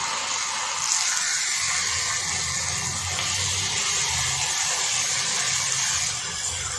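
Chopped tomatoes sizzling in hot oil on an iron tawa as a spatula stirs them in; the sizzle swells about a second in and eases slightly near the end.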